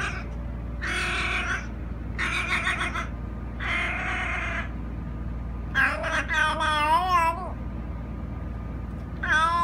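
Small black house cat meowing loudly, five times: the first three calls hoarse, then a longer wavering meow about six seconds in, and a short one near the end.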